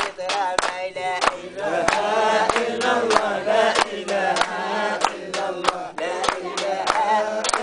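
Men singing together, drawing out a devotional line in praise of the Prophet, over steady rhythmic hand clapping at about three claps a second.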